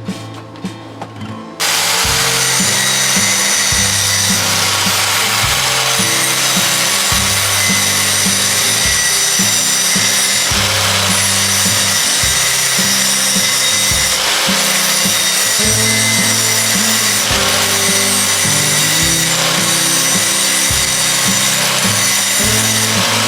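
A power tool running steadily, starting about a second and a half in, with background music underneath. Before it starts there are a few light metallic clicks.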